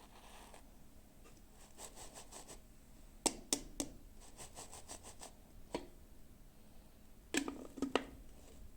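Hands unboxing small plastic toys: runs of light ticking and a handful of sharp clicks as the plastic pieces and packaging are handled.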